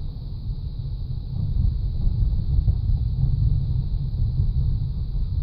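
Steady low road rumble inside the cabin of a moving Chevrolet Monte Carlo, swelling a little in the middle.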